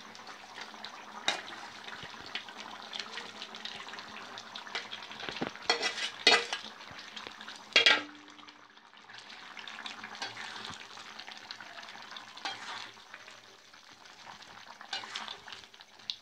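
Curry sizzling in a black kadai while a metal spatula scrapes and clinks against the pan. Several sharp clanks stand out, the loudest about eight seconds in as fried chicken liver is knocked off a metal plate into the pan.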